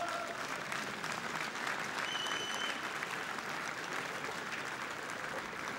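Audience applauding, with a brief high steady tone about two seconds in.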